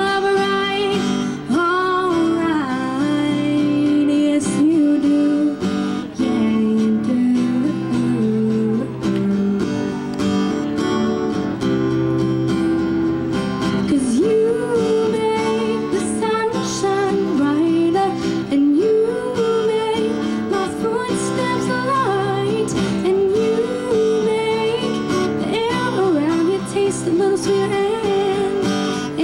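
A woman singing while strumming an acoustic guitar, in a live solo performance.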